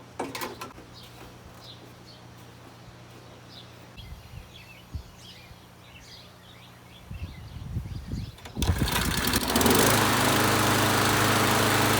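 Ariens lawn mower's small gasoline engine is started about eight and a half seconds in, after a few low knocks, and then runs steadily and loudly.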